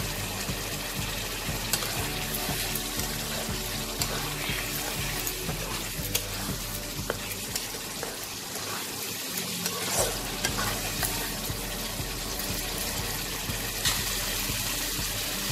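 Spice paste, chilli powder and potato cubes sizzling in hot oil in a kadai while a spatula stirs, with scattered scrapes and taps of the spatula against the pan. The masala is being fried in the oil.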